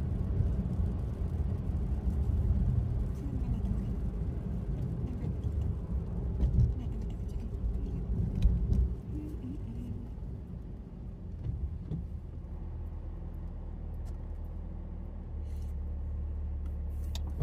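A car being driven, heard from inside the cabin: a steady low rumble of engine and road noise, with a couple of louder bumps in the middle.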